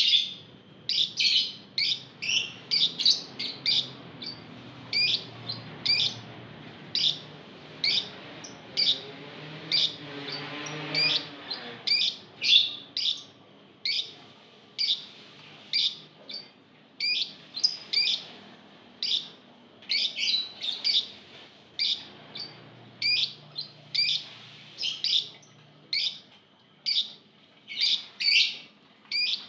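A caged group of Fischer's lovebirds calling: short, sharp, high-pitched chirps, roughly one or two a second, kept up throughout.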